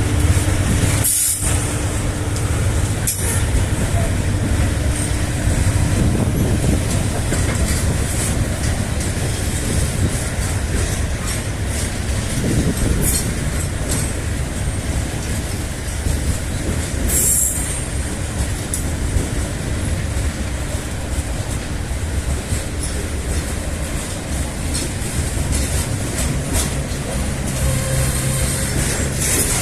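A loaded freight train carrying bauxite ore rolls past with a steady rumble of wagons on the rails. High-pitched wheel squeals break through a few times.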